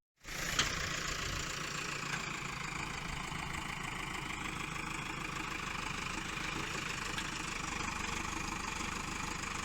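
An engine running steadily at an even speed, with a constant hiss over its low hum.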